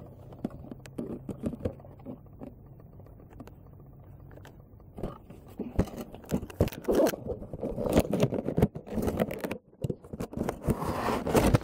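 Cardboard box and clear plastic packaging being handled and opened: scrapes, rustles and small knocks, sparse at first and busier and louder from about five seconds in.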